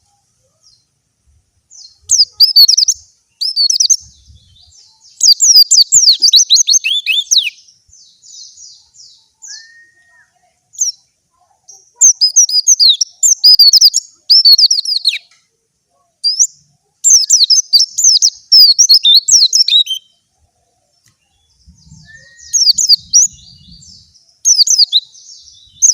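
Young white-eye (pleci) singing in bursts of rapid, high-pitched warbling phrases a few seconds long, separated by short pauses. The phrases are the bird 'opening its beak' to sing its learned material.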